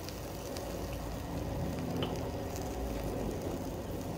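Chicken wings sizzling on the grate of a charcoal kettle grill, with a few light clicks of metal tongs as a wing is turned, over a low steady rumble.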